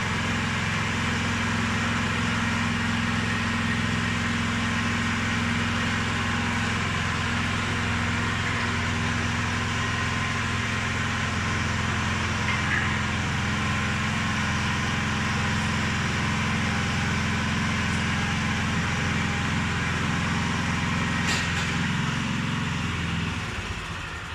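Engine of a small crawler concrete mixer running steadily at an even speed, then starting to wind down about a second before the end as it is shut off.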